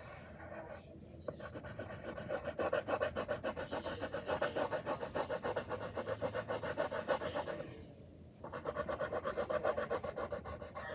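Rapid back-and-forth scribbling on paper with a yellow colouring utensil, colouring in the cheese of a drawn burger, about eight strokes a second. It starts about a second in, stops briefly near the eight-second mark, then resumes.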